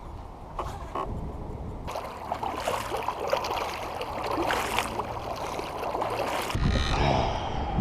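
Water splashing and rushing along a kayak as it moves across the water, growing louder about two seconds in, with a faint steady low hum underneath; near the end it gives way to a low rumble.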